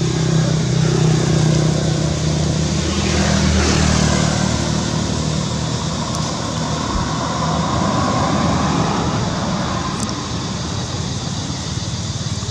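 A motor vehicle's engine running with a steady low hum that fades out about six seconds in, over a constant background of road-traffic noise.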